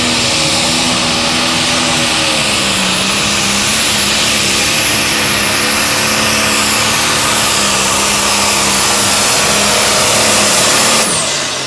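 John Deere pro stock pulling tractor's turbocharged diesel at full throttle under the load of the sled, with a high turbo whistle held steady over the engine. The engine pitch sags slightly a couple of seconds in, and near the end the throttle is cut and the whistle winds down.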